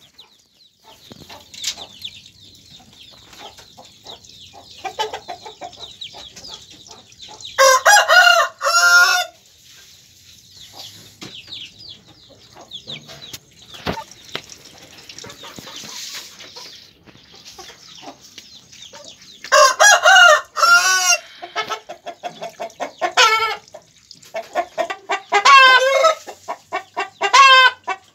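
Backyard chickens calling in their coops: a rooster crows twice, about eight and twenty seconds in, and shorter loud clucking calls come thick near the end. Under them runs a steady high peeping, strongest in the first half.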